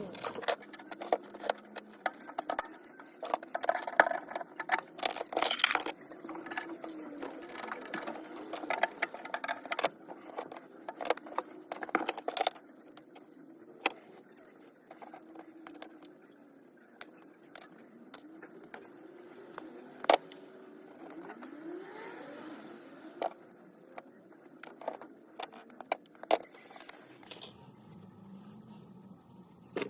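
A run of clicks, knocks and scraping as hard objects are handled, busiest in the first half. A steady low hum starts near the end.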